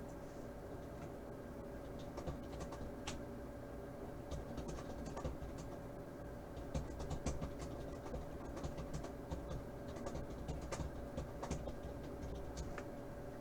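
Scattered light clicks and scratching from small handling noises over a steady faint hum.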